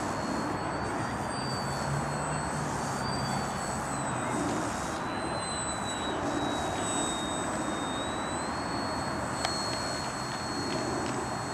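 Small electric RC foam stunt plane in flight: a thin, high motor-and-propeller whine that drops in pitch partway through and climbs back up as the throttle changes, over steady wind rumble on the microphone. One sharp click near the end.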